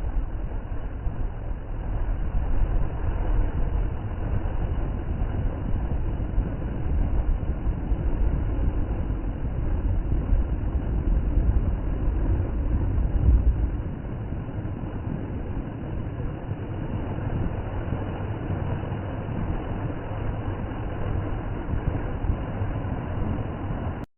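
Heavy monsoon floodwater rushing out of Khadakwasla Dam's spillway in a steady, loud rush with a deep rumble, which eases somewhat about 14 seconds in.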